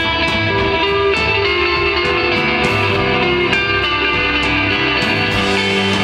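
Instrumental rock band playing live: electric guitar notes ringing over bass guitar and drums, with cymbals struck in a steady beat about three times a second.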